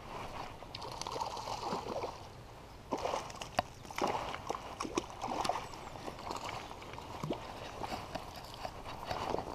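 A hooked trout splashing and thrashing at the surface of a shallow stream, then swung out onto the grassy bank. Irregular splashes and sharp slaps come thickest about three to six seconds in.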